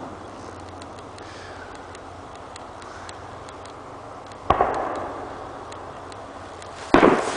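Aerial fireworks shells bursting: two loud booms about two and a half seconds apart, each trailing off in an echo, over faint scattered ticking.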